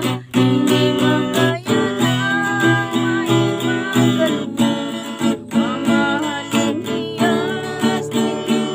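Acoustic guitar strummed in a steady rhythm, with a voice singing a worship song over it.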